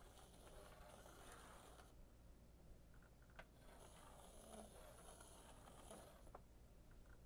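Near silence: faint swishing of a stick and a wooden pin comb drawn through the liquid marbling size in a metal tray, with a couple of light taps.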